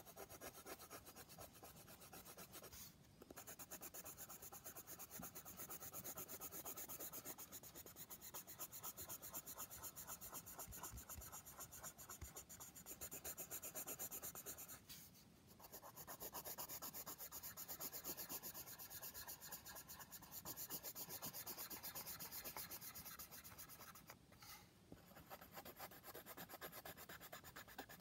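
Coloured pencil scratching quickly back and forth on drawing paper as an area is shaded in, a faint, fast run of strokes. It breaks off briefly three times: about three seconds in, around the middle and a few seconds before the end.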